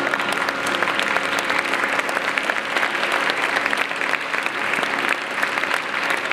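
Theatre audience applauding steadily at the end of an opera performance, many hands clapping in a dense, even patter.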